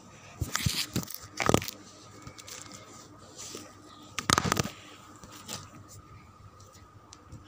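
Handling noise on a phone's microphone: a few short bursts of rustling and scraping as the phone is moved and rubbed, about half a second in, again just after a second, and near the middle, over a faint steady hum.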